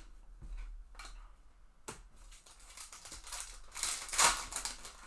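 Trading-card pack wrapper being crinkled and torn open by hand, a crackly tearing that grows loudest near the end, after two short sharp clicks in the first two seconds.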